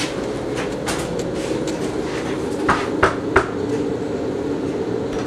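Three quick knocks on a front door, with a steady low drone underneath.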